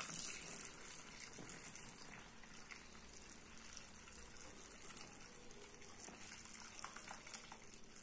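Soapy liquid poured through a plastic funnel into a plastic spray bottle, faint trickling and frothing as the bottle fills with foam. A few faint clicks come in the second half.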